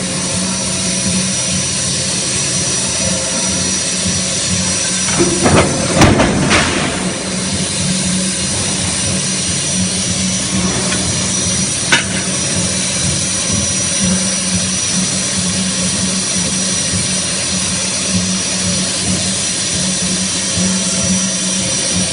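Steady loud roar and hum of crankshaft-forging plant machinery, with a few sharp blows about a quarter of the way in and a single sharp knock around the middle.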